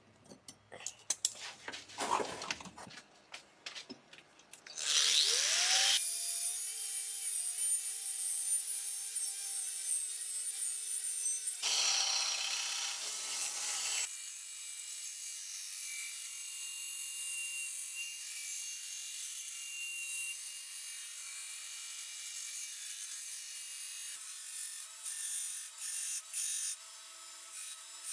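A few scattered clicks and knocks, then about five seconds in a belt grinder spins up and runs with a steady tone. Its abrasive belt grinds the steel of a Damascus cleaver blade with a continuous high hiss, taking down the bevels.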